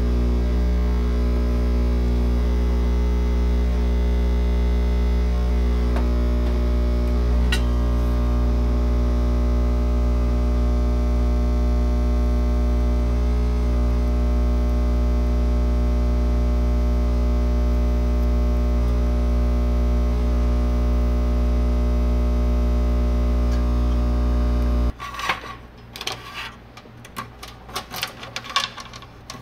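Loud, steady electrical mains hum, a deep buzz with many overtones. About 25 seconds in it cuts off suddenly, and light irregular clicks and taps of hands handling wires and connectors in a plastic enclosure follow.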